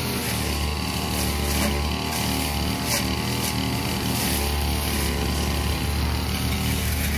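Two-stroke 328-type brush cutter engine running steadily under load while its blade cuts through tall dry grass.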